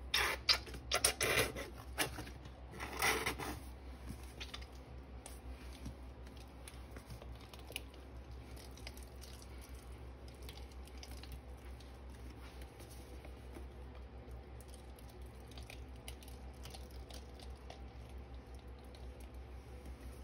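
Plastic squeeze bottle of Soft Scrub cleaning cream squeezed, giving several short, loud squirts and sputters in the first few seconds. After that come only faint soft ticks and squishes as the cream is drizzled over the powdered sponges.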